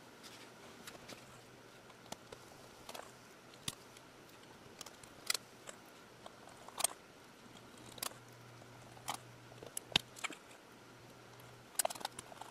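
Torx screwdriver fastening the control board screws on a hard drive: sparse, light metal clicks of the bit and screws, about one every second or so.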